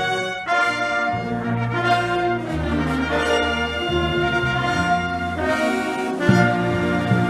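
High school band's brass section playing a medley in held chords, with new chords struck about half a second in, at about two and a half seconds, and again near the end, where sharp percussion hits come in.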